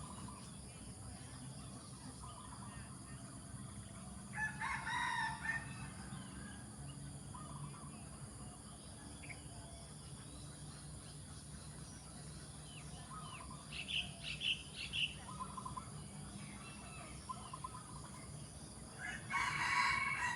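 Zebra doves (perkutut) calling in short trilled cooing phrases. Louder calls stand out about five seconds in, in a cluster around the middle, and again near the end, over a steady low background hum.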